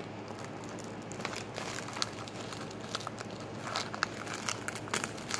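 A foil-lined plastic wrapper being handled and folded by hand, crinkling with scattered small crackles.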